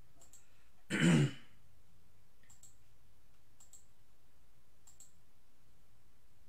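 A man clears his throat once, sharply, about a second in, followed by a handful of faint computer mouse clicks spaced a second or so apart.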